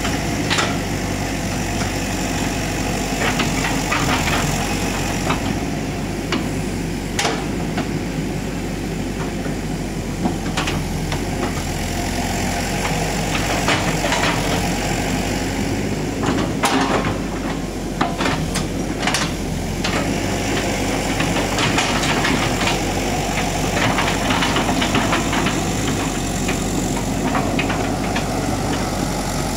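Hitachi EX120-5 hydraulic excavator's diesel engine running steadily as the machine works, with scattered sharp cracks and knocks, bunched together in a few stretches, as the bucket shoves a felled oil palm and its fronds.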